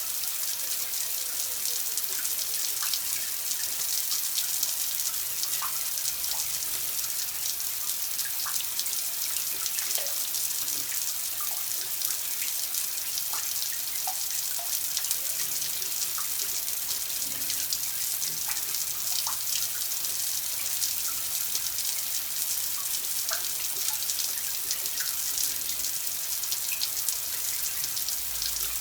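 Water running steadily in a hissing stream, with scattered short plinks of drops and bubbles.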